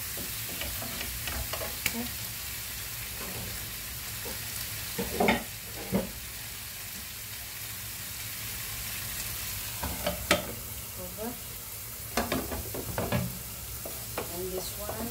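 Sliced mushrooms frying in butter in a nonstick frying pan, a steady sizzle. A wooden spatula stirs and scrapes against the pan a few times: about five seconds in, around ten seconds, and again near the end.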